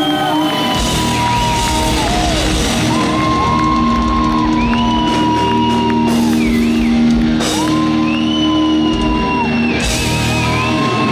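Live rock band playing: electric guitars hold long lead notes that bend and fall away at their ends, over sustained lower notes, bass and drums.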